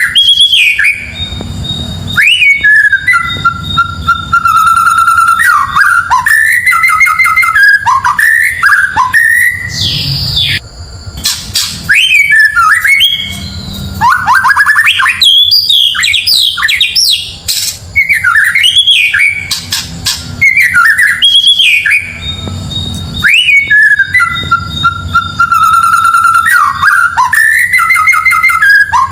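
White-rumped shama (murai batu) singing a loud song of varied whistled phrases: held notes, rising and falling sweeps and quick trills. The same run of phrases heard a couple of seconds in comes round again about twenty seconds later.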